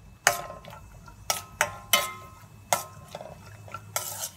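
A metal cooking pan struck by a utensil: about six sharp clinks over four seconds, each ringing briefly.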